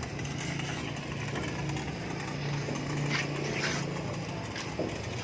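A vehicle engine running steadily, a low even hum, with a couple of brief scratchy sounds a little past halfway.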